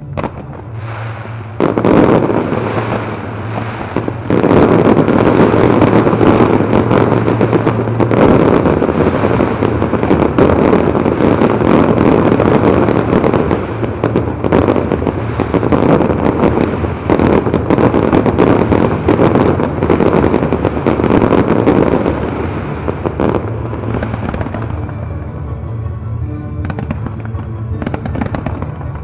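Fireworks show: dense rapid bangs and crackling from many shells bursting overhead, starting about two seconds in and thinning out after about twenty seconds, with show music underneath.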